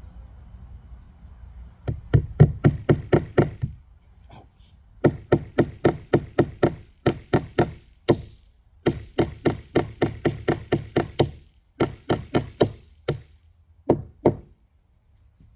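Hammer driving nails into the top of a dog platform being patched: bursts of quick, sharp knocks, about five a second, with short pauses between the bursts.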